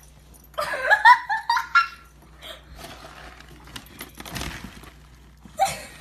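A person laughing in a quick giggling burst for about a second and a half, starting just after the beginning. Then comes quieter rustling with a few small clicks.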